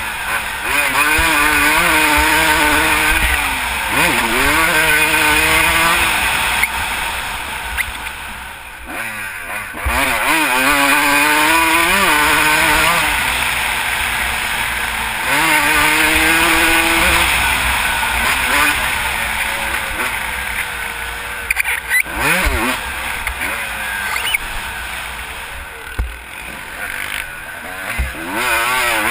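Dirt bike engine being ridden hard around a motocross track, its pitch climbing and falling again and again as the rider accelerates, shifts and rolls off. Wind buffets the on-bike microphone.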